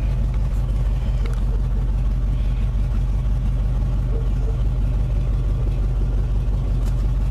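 1978 Chevy K20 pickup's carbureted V8 running at a steady speed, heard from inside the cab.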